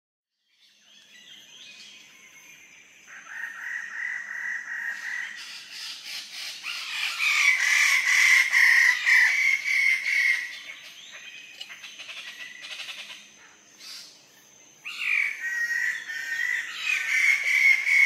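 Wallace's standardwing bird-of-paradise calling in two long runs of rapid repeated notes: the first starts about three seconds in and stops around ten seconds, and the second starts about fifteen seconds in.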